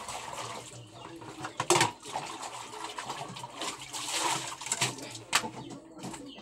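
Hand-washing dishes: water splashing and sloshing in a plastic bucket, with several sharp clatters of dishes, the loudest a little under two seconds in.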